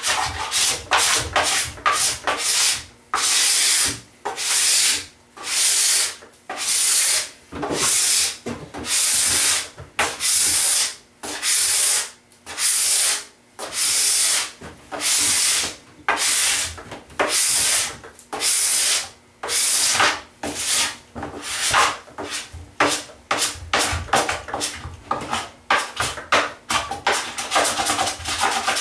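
Wax scraper drawn again and again along a snowboard base, scraping off hot wax while it is still warm. Strokes come about once a second, turning shorter and quicker in the last third.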